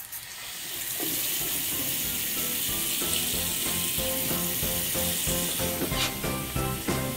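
Water running from a newly installed bathroom sink faucet into the basin, turned on for its first test. Background music with a steady beat comes in about a second in and plays over the running water.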